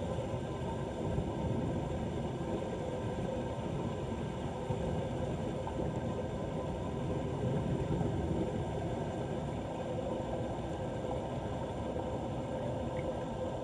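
Steady rushing noise of floodwater pouring down a cleared street drain, low and even without a break.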